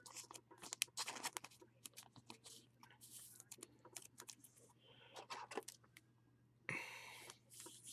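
Faint scattered clicks and rustles of trading cards and plastic card sleeves being handled, with a brief crinkling hiss near the end.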